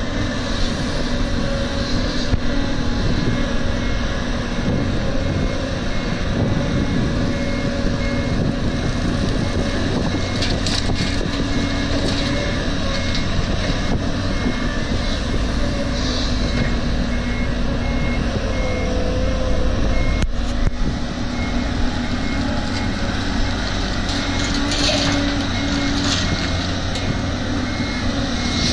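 Diesel engines of a Caterpillar excavator and dump trucks running steadily, with a dump truck's reversing alarm beeping evenly at a high pitch from a couple of seconds in. A couple of brief rattles, midway and near the end, as loads of laterite drop into a truck bed.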